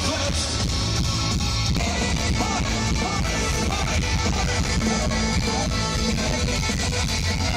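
Live metal band playing: electric guitars over a drum kit and heavy bass.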